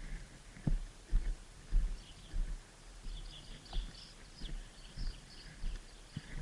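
Footsteps walking over outdoor ground, a short low thud about every half second to second, with birds chirping faintly about halfway through.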